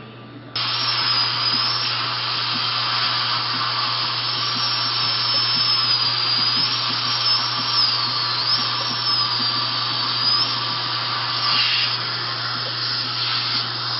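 Dentist's high-speed drill starting suddenly about half a second in: a high whine that dips and wavers as it cuts the broken tooth, over a steady hiss. The whine stops about ten seconds in while the hiss goes on.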